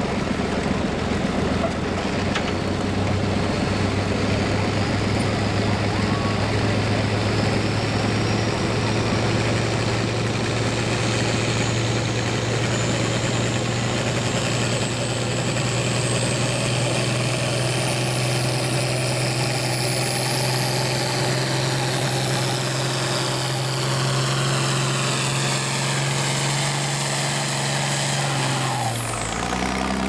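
International Harvester farm tractor's diesel engine running hard under load as it pulls a weight-transfer sled, with a high whistle that climbs slowly in pitch. About a second before the end the engine is let off and the whistle falls away sharply.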